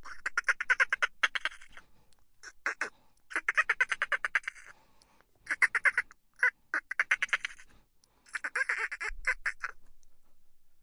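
Dolphins chattering in bursts of rapid-fire clicks, about five bursts of half a second to two seconds each, separated by short gaps.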